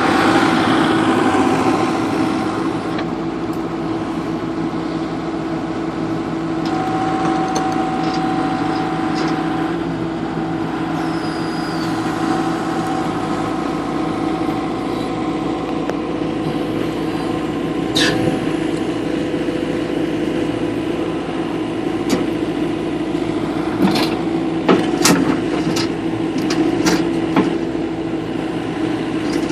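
The John Deere 120C excavator's 4.5-litre four-cylinder turbodiesel runs steadily as the machine is worked, easing down from a higher pitch in the first couple of seconds. One sharp knock comes past the middle and a cluster of knocks near the end.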